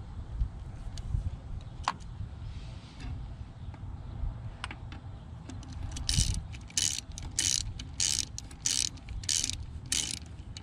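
Ratchet wrench being worked back and forth, with a short burst of clicking on each return stroke about twice a second through the second half, after a few scattered clinks of tools.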